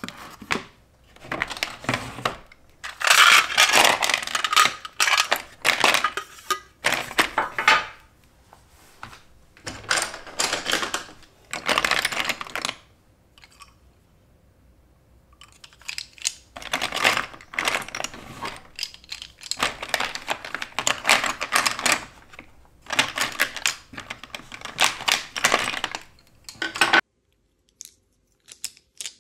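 Wax pastel crayons and coloured pencils clattering against one another and a clear plastic box as they are packed, in bursts of rattling with short pauses between. The sound stops abruptly near the end.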